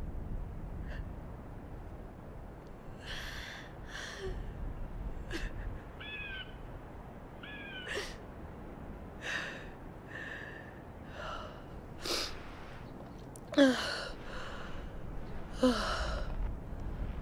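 A young woman crying alone: a series of short breathy sobs, gasps and high, falling whimpers, with two louder voiced sobs near the end.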